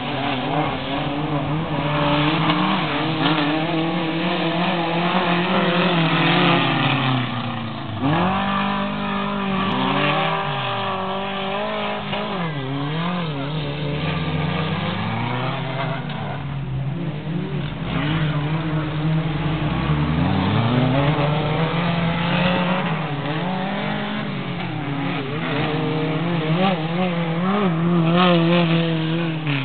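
Engines of several dirt-track race pickup trucks running hard around the track, their pitch rising and falling over and over as the trucks accelerate and back off, with more than one engine note overlapping.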